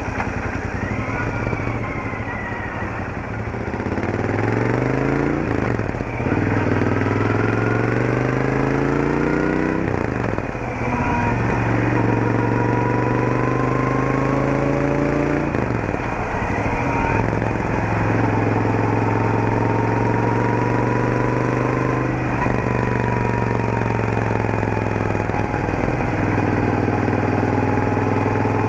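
Royal Enfield Interceptor 650's 648 cc parallel-twin engine through its stock exhaust, pulling away at low speed: the engine note climbs and then drops with each upshift, about four gear changes, before settling to a steady cruise. A thin higher whine follows the engine speed above the exhaust note, the transmission's gear whine.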